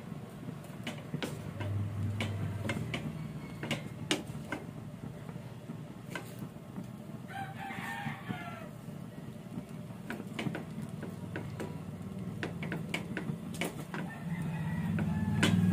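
A wooden spatula scrapes and taps against a metal wok as fried rice is stirred, giving a run of sharp clicks. A rooster crows once about halfway through. A low rumble grows louder near the end.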